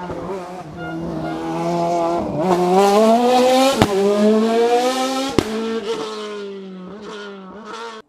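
Race car taking a hairpin: the engine note dips through the bend, then climbs twice as it accelerates out through the gears, each upshift marked by a sharp crack, with a brief tyre squeal. It then falls away and fades as the car climbs off, and cuts off suddenly at the end.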